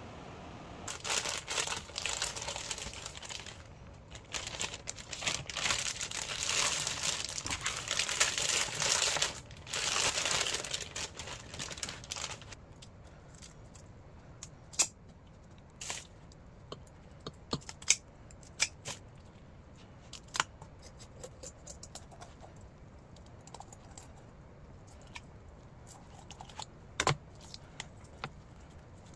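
Crinkling and rustling handling noise for about twelve seconds, then scattered light clicks and taps.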